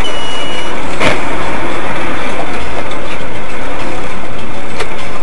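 A vehicle running, heard as loud, steady, distorted noise through a dashcam microphone. A short beep sounds at the start, a sharp knock about a second in and a fainter click near the end.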